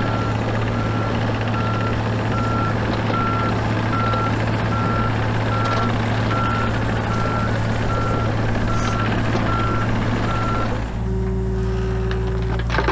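Mini excavator's engine running under load while its travel alarm beeps steadily, about twice a second, as the machine tracks. Near the end the beeping and engine sound stop and a steady lower hum takes over.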